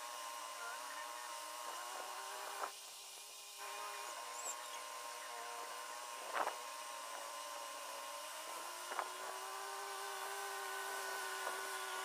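Distant farm tractor engine running with a steady whine that rises a little in pitch about eight and a half seconds in, with a few short knocks, the loudest just past the middle.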